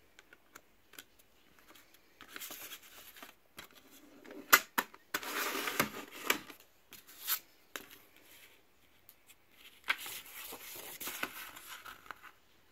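A plastic CD jewel case and its paper booklet being handled: scattered plastic clicks, a sharp click about four and a half seconds in, and stretches of paper rustling and scraping as the booklet is taken out and opened.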